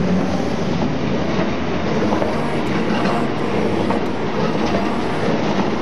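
Articulated Talgo passenger coaches passing close at speed: a steady loud rush and rumble of wheels on rail, with occasional clicks.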